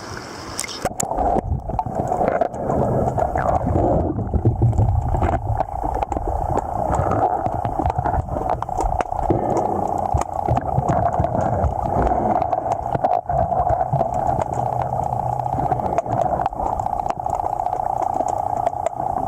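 Steady rush of flowing river water, with scattered clicks and knocks throughout.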